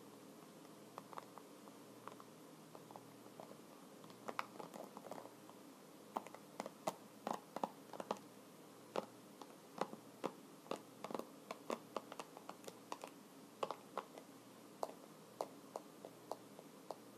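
Computer keyboard keys typed and tapped in an irregular, unhurried rhythm. The keystrokes are soft and sparse at first and become louder and more frequent from about four seconds in.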